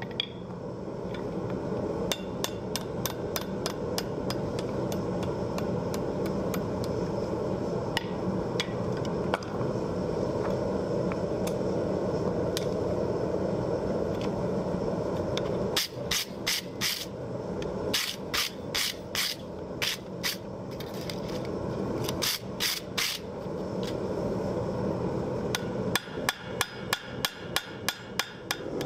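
Hammer blows on hot steel at the anvil as a butcher's hook is shaped over the horn: scattered single strikes at first, then bursts of rapid blows in the second half and a quick run of about three a second near the end. A steady roar of the forge runs underneath.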